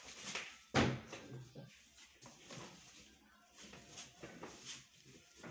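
Cardboard carton and machine parts being handled during unpacking: rustling and scraping of the cardboard, with one sharp knock a little under a second in and several smaller knocks after.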